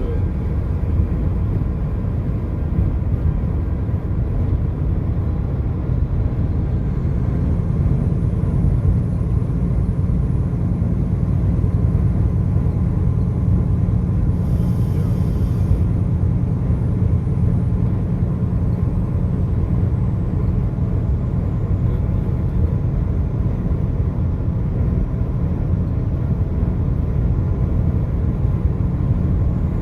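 Steady low rumble of a car driving along the highway, with a brief hiss about halfway through.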